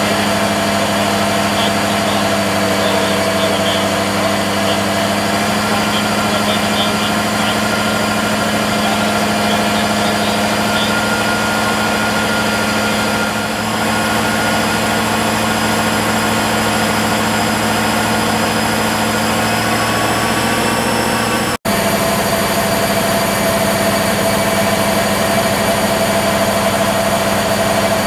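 Car engine idling steadily: an even hum with a few fixed tones over it. The sound drops out for an instant about three-quarters of the way through.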